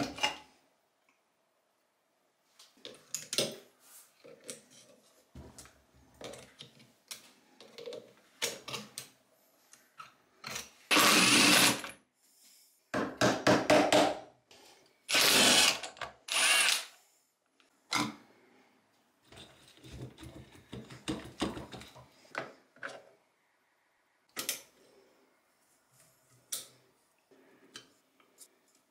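Power tool run in three short bursts of a second or so, starting about 11 seconds in, driving a long socket extension to undo a nut on a motorcycle engine's clutch. Clinks and knocks of metal parts and hand tools come in between.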